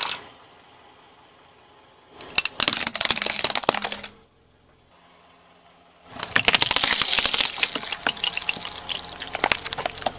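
A car tyre crushing plastic objects, each a run of dense crackling and snapping. The first, starting about two seconds in and lasting about two seconds, is a plastic toy water gun. The second, from about six seconds in and lasting about four seconds, is a plastic bottle of red liquid giving way under the tyre, with liquid squirting out.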